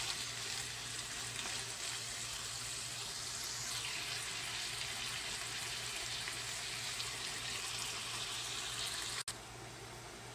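Pork belly pieces and onions sizzling steadily in a frying pan. About nine seconds in the sound drops suddenly to a quieter sizzle with the pan lidded.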